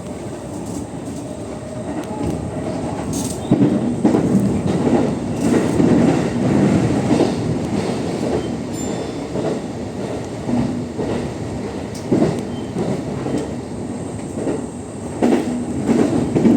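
Cabin noise inside a JR East E233-1000 series electric train running at speed: a steady rumble of wheels on rail that swells a few seconds in, with occasional sharp clicks as the wheels pass rail joints.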